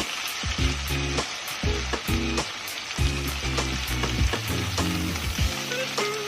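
Marinated beef strips sizzling as they fry in olive oil in a wok, stirred with a wooden spatula, with a steady frying hiss throughout. Background music with low sustained notes and a regular tick runs underneath.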